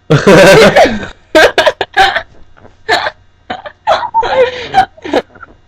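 A woman making a weird vocal noise: one long wavering voiced sound of about a second, loud enough to hit full scale, followed by a string of short throaty vocal bursts.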